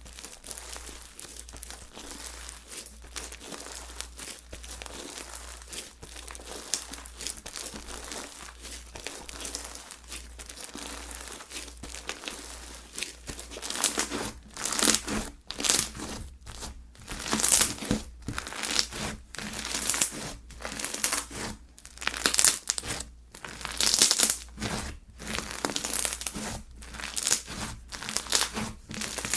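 Slime being squished, pressed and stretched by hand, with dense crackling and popping. About halfway through the presses get louder, coming in strokes roughly once a second.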